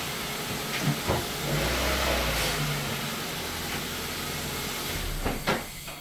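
Car engine running, with a steady rushing hiss over a low drone that shifts in pitch, and a few sharp clicks about a second in and again near the end.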